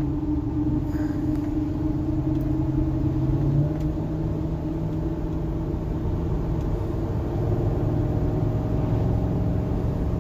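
Chevrolet Silverado 3500 pickup cruising, heard from inside the cab: a steady engine hum over tyre and road rumble. The engine note drops a little about four seconds in.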